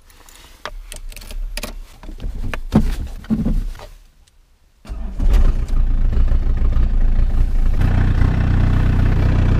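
Ignition key handled with a few clicks, then a short quiet pause before the Peugeot 306 turbodiesel engine starts about five seconds in and settles into a steady idle. This is a cold start.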